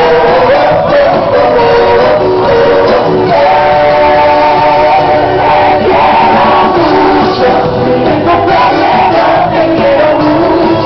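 Loud live band music with a sung melody line, echoing in a large hall.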